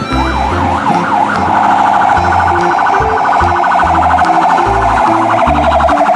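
A toy fire truck's electronic siren. It gives a few quick wails rising and falling, then switches to a fast warble that holds steady. Background music with a regular bass beat plays underneath.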